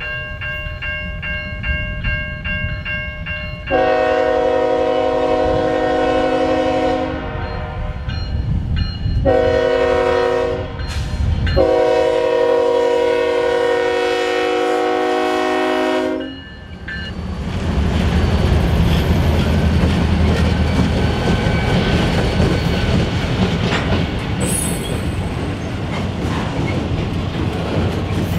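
Grade-crossing bell ringing about twice a second over the low rumble of an approaching CSX diesel locomotive, then the locomotive's multi-note air horn sounds three blasts for the crossing: long, short, long. After the horn, freight cars rumble and clatter across the crossing, with a brief high wheel squeal near the end.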